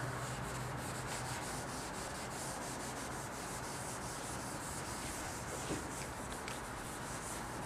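Chalkboard eraser scrubbing chalk off a blackboard, a steady run of rubbing strokes.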